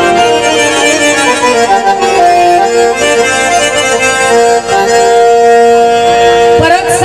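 Harmonium playing an instrumental interlude between sung verses, with long held notes.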